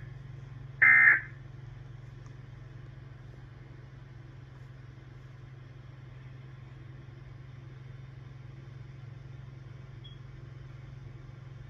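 Emergency Alert System end-of-message data burst: the last of three identical short digital tone bursts, about a second in. After it comes a steady low hum on the broadcast feed.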